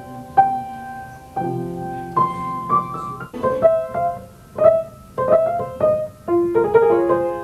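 Grand piano played slowly: single notes and small chords, each struck and left to ring and fade, the notes coming a little quicker in the second half.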